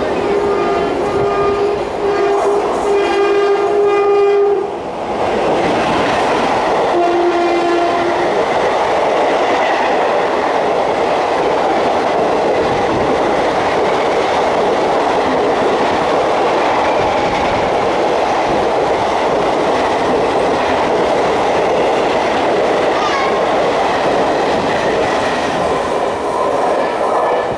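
WAP-4 electric locomotive's horn sounding one long blast, then a shorter, lower note about seven seconds in, as the express runs through the station. It is followed by the steady rush of the coaches passing at speed for about twenty seconds.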